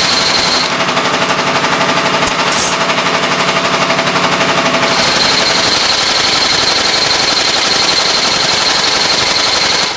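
TSH-2619 double-needle Goodyear welt inseam chain stitch machine sewing the welt to a shoe. Its awl and needle drive run with a fast, even clatter.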